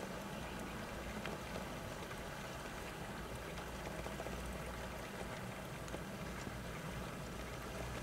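Steady outdoor background: a low rumble under an even hiss, with a few faint ticks and no distinct bird calls.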